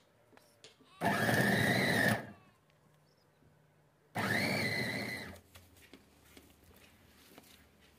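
Electric food chopper run in two short pulses, each a little over a second, its motor whine rising as it spins up, then holding steady while the blade chops raw meat and onion for mince.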